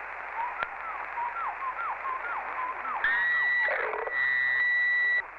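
CB radio receiver hiss with a quick run of short falling chirps, then a loud steady high tone transmitted over the channel about three seconds in, breaking briefly and cutting off suddenly near the end.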